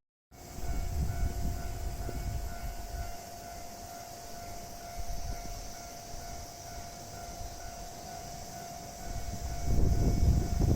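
Japanese railway level crossing warning signal ringing a steady, pulsing tone, with the low rumble of an approaching train growing loud near the end.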